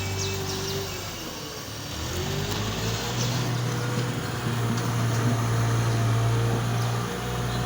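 An engine running steadily, its pitch sagging about a second in and climbing back up by about three seconds, as if briefly put under load.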